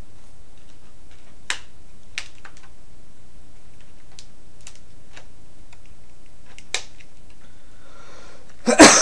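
Sparse light plastic clicks of a Transformers Breakdown action figure being handled, about six spread over several seconds, then a loud plastic clatter near the end.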